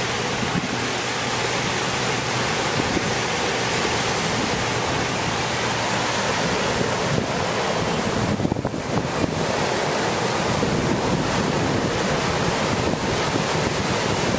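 Pacific Ocean surf washing steadily, with wind buffeting the microphone. The hiss dips briefly about eight seconds in.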